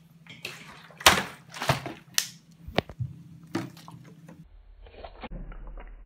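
Plastic water bottle knocking and thudding on a hard tabletop as it is handled and flipped, about five sharp knocks in the first few seconds. After that the sound turns dull and muffled with a low hum.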